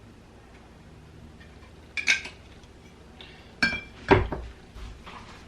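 Kitchenware clinking and clattering: a couple of sharp clinks about two seconds in, then two louder clatters, the second with a dull knock, between three and a half and four and a half seconds in.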